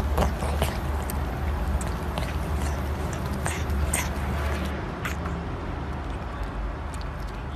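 A kitten lapping milk from a bowl: irregular small wet clicks and smacks of its tongue, over a steady low hum.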